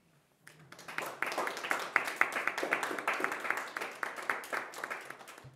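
Applause from a small audience, many hands clapping irregularly. It starts about half a second in, is fullest in the middle and thins out near the end, greeting the close of a talk.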